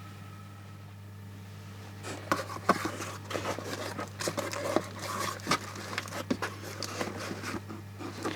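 Small plastic bags of electronic components being handled: irregular rustling, crinkling and small clicks that begin about two seconds in, over a steady low hum.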